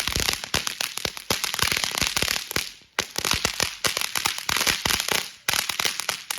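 Pixie Dust novelty ground firework going off with loud crackle: a dense run of rapid sharp pops. The pops break off briefly about three seconds in and again just past five seconds, then stop at the end.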